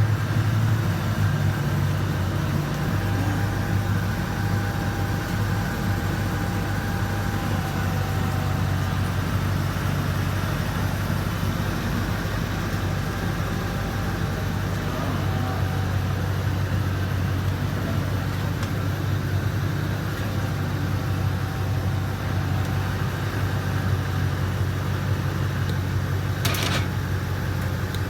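Steady low mechanical hum, like a motor running, with one short hiss near the end.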